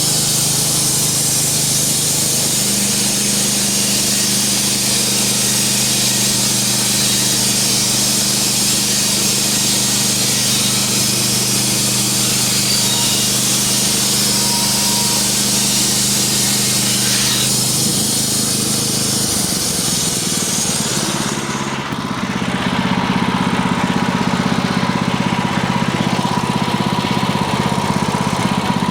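Wood-Mizer portable bandsaw mill running under load: its engine hums steadily while the band blade cuts along a board with a steady high hiss. About three-quarters of the way through the cut noise stops and the engine keeps running on its own.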